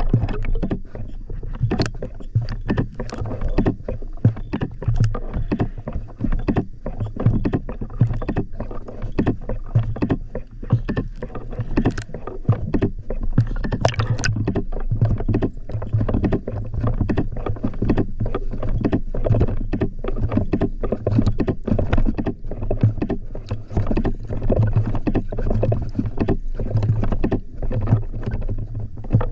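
Water splashing and slapping irregularly, as against a boat, over a steady low hum.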